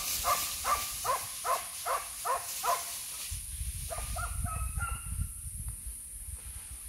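Hunting dogs barking off in the undergrowth: a steady run of about seven barks, roughly two a second, then a few higher-pitched yelps about four to five seconds in.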